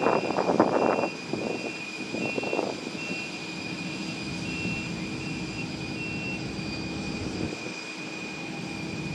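Steady high-pitched whine of a parked Boeing 747-400 freighter's auxiliary power unit, under a louder rushing noise for the first couple of seconds, then settling to an even hum.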